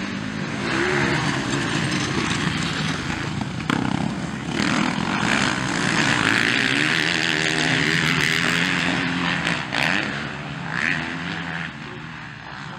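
Motocross bikes racing on a dirt track, engines revving up and down as the riders work the throttle, loudest as two bikes pass close by in the middle.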